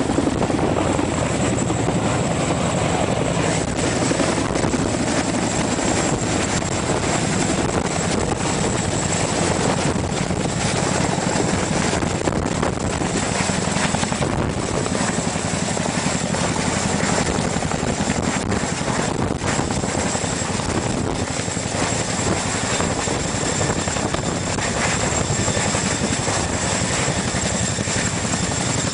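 CH-47 Chinook tandem-rotor helicopter hovering close by. Its rotors and twin turboshaft engines make a loud, steady noise with a thin high whine over it, unbroken throughout.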